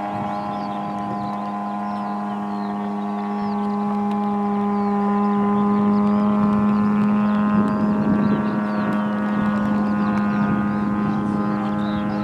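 Engine of a radio-controlled model tow plane droning at one steady pitch as it tows a model glider aloft. The drone grows louder midway, then eases slightly.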